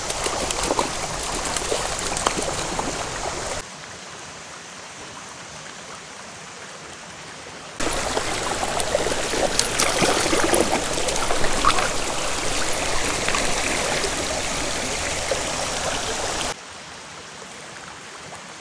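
Creek water running and splashing as a hooked rainbow trout thrashes at the surface, with short splash sounds over the steady rush. The sound drops abruptly a few seconds in, comes back loud about eight seconds in, and drops again near the end.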